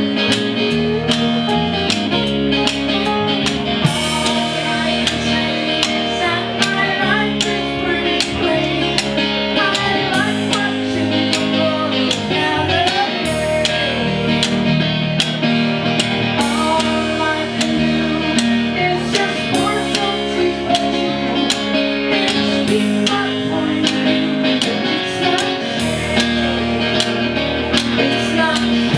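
Live band playing: guitar over bass and drums, with a steady beat.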